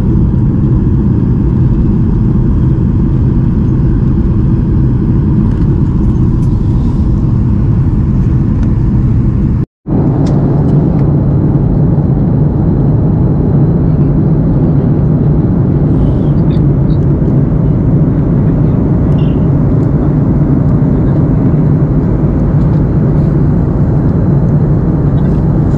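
Loud, steady cabin noise of a jet airliner in flight, a low rumble of engines and airflow with a steady hum under it. It drops out briefly about ten seconds in, then resumes with the hum a little stronger.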